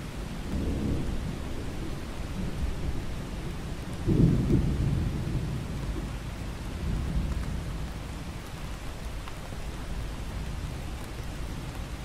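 Thunder rumbling over steady rain, with the loudest roll about four seconds in and weaker rolls near the start and around seven seconds.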